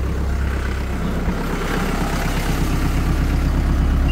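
Kubota KL380's naturally aspirated four-cylinder diesel engine idling steadily.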